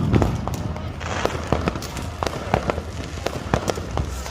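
Fireworks and firecrackers going off: a rapid, irregular string of sharp bangs and cracks, about four or five a second, over a steady low rumble.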